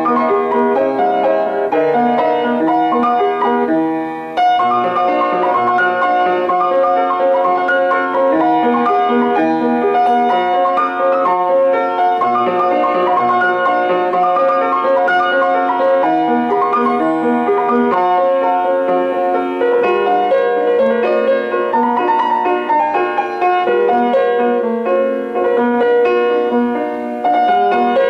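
Background piano music: a continuous melody of many quick notes, with a brief drop in loudness about four seconds in.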